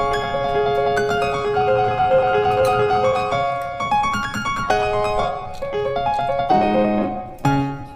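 Background music: piano melody with held notes.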